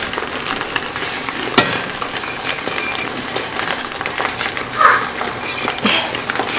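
Creamy shrimp sauce poured from a pan onto fettuccine in a pot, over a steady sizzling hiss, with one sharp clink of the pan about one and a half seconds in.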